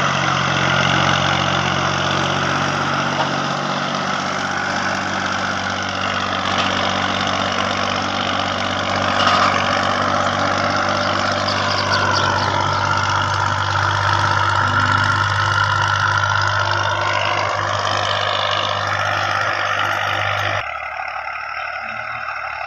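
1983 Massey Ferguson 240's three-cylinder Perkins diesel engine running steadily under load, pulling a 13-tine cultivator through the soil, its pitch wavering slightly up and down. About 21 seconds in the engine becomes quieter and more distant.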